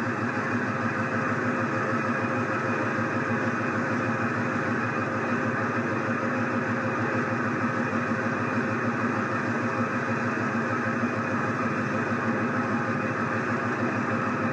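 Car engine idling steadily, with an even, unchanging hum.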